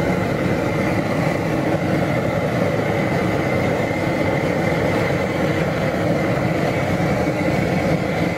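Butane burner for a crawfish boil running with a steady, loud rush and hum.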